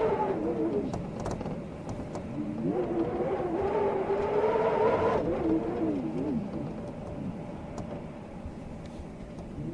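Storm wind howling in gusts over a steady rush. A pitched howl rises about two and a half seconds in, holds, then wavers and falls away about six seconds in, and a lower howl starts again near the end.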